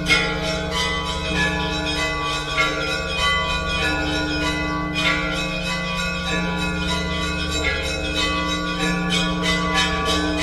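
Russian Orthodox church bells ringing a continuous peal. Many bells of different pitch are struck in quick, overlapping strokes over the steady hum of the deeper bells.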